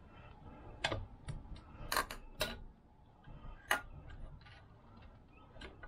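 Irregular light clicks and knocks, about a dozen spread over several seconds, as hands handle the scooter engine's kickstart lever and parts on the workbench.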